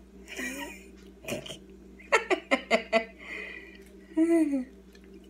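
A woman's throaty, wordless vocal sounds: a quick run of short bursts about two seconds in, then a longer pitched sound that rises and falls near the end.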